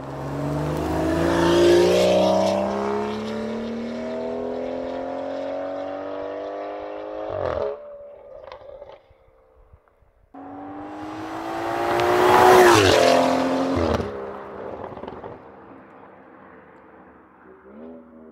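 BMW X3 M40i's turbocharged B58 inline-six through a valved sport exhaust with free-flow downpipes, accelerating hard: the engine note climbs steadily for about seven seconds, then drops off suddenly with a few pops. About ten seconds in a second, shorter pull starts abruptly, rises to its loudest and falls away with crackles.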